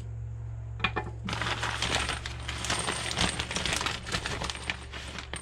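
Small loose metal PEX fittings and crimp rings jingling and clinking against each other as they are handled. A single click comes about a second in, then a dense, continuous run of metallic clinks.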